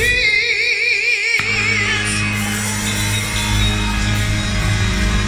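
Gospel song played back: a woman's voice holds one long high note with wide vibrato, then the band with a heavy bass comes in about a second and a half in.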